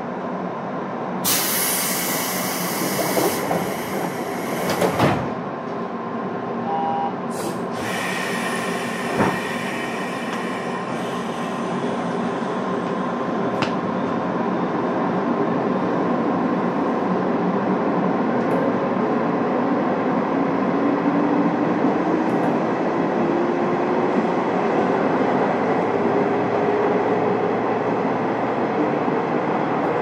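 Inside the passenger car of a JR West 201 series electric train pulling away: two bursts of compressed-air hiss in the first ten seconds, then running noise from the wheels that grows louder, with a motor whine climbing slowly in pitch as the train gathers speed.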